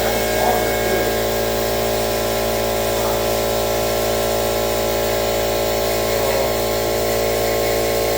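A small motor running steadily: a constant hum made of several fixed pitches that does not change.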